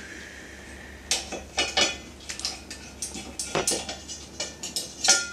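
Metal kitchen utensils clicking and clinking against a steel cooking pot in a quick, irregular series of sharp taps, as garlic is crushed over the pot.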